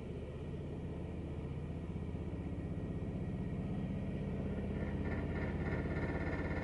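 Noisy washing machine running: a steady low mechanical hum with a fast pulsing that grows gradually louder, joined by a higher whine about five seconds in.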